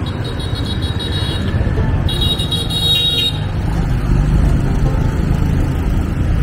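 Steady low rumble of wind and engine while riding a motorbike through traffic, with two short, high-pitched horn beeps, the first just after the start and the second about two seconds in.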